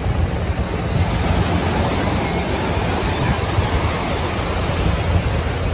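Ocean surf breaking and washing around, with wind rumbling on the microphone: a steady rushing noise.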